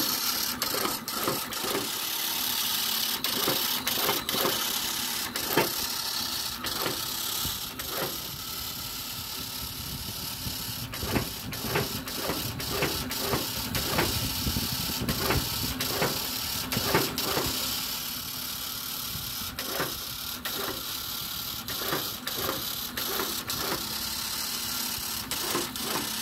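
Automatic agarbatti (incense stick) making machine running with a steady mechanical whir and irregular sharp clacks, about one or two a second, as freshly rolled sticks are flung out onto the steel tray. The sticks flying off are a sign that the extrusion pressure is still set too high.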